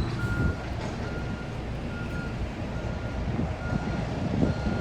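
Reversing alarm on construction machinery beeping steadily, about six short high beeps, a little faster than one a second, over a low rumble.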